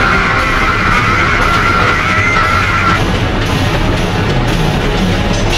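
Loud harsh noise music: a dense, distorted, unbroken wall of sound. A high buzzing layer on top of it cuts out about three seconds in, leaving the rougher noise bed.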